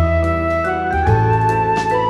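Background music: a melody over a bass line, with a light steady beat.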